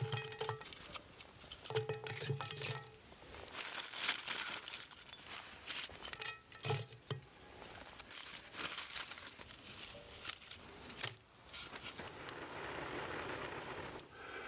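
Crackling, crinkling noises and small clicks of hands-on cooking over an open fire, with three short pitched calls: one at the start, one about two seconds in and one near the middle. A steadier hiss builds toward the end.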